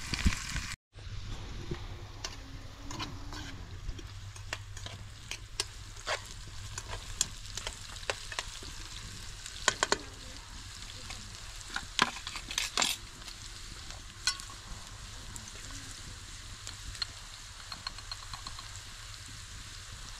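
Sliced vegetables sizzling in a frying pan over a wood fire, a steady frying hiss with scattered sharp clicks and clinks against the pan. The sound drops out briefly about a second in.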